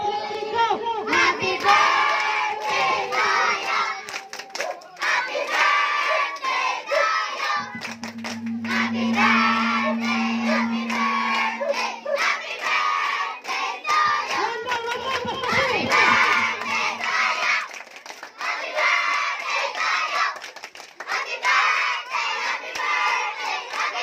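A group of children clapping and singing a birthday song together, with shouts mixed in. One long steady note is held from about 8 to 12 seconds in.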